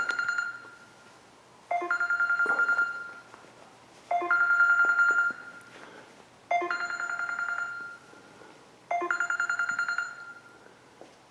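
Telephone ringing with an incoming call that is left unanswered. A trilling ring repeats about every two and a half seconds, each ring lasting about a second and a half, with four full rings after the tail of one already sounding.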